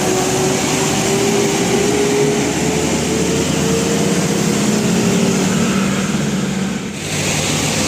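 A large road vehicle driving by: its engine runs under loud, steady road noise, with its pitch drifting slowly. The sound dips briefly near the end.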